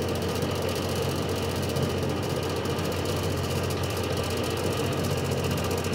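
Toshiba microwave oven running at 600 W, a steady hum in the last seconds of its cooking cycle.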